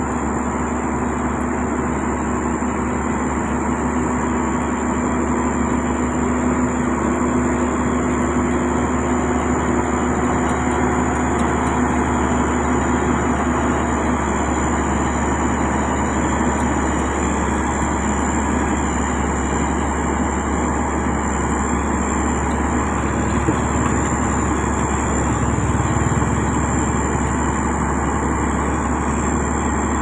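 Heavy road-construction machinery, a motor grader and a road roller, running steadily on diesel engines with a constant hum and no breaks.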